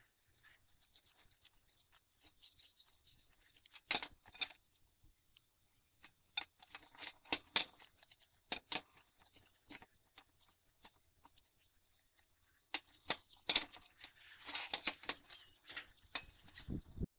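Scattered clicks, rattles and knocks of a steel sliding guide and its mounted angle grinder being handled on a workbench, with a busier cluster of knocks and a heavier thump near the end.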